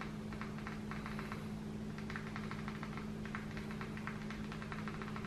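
Faint, irregular clicks of a Fire TV Stick remote's buttons being pressed over and over, several a second, over a steady low hum.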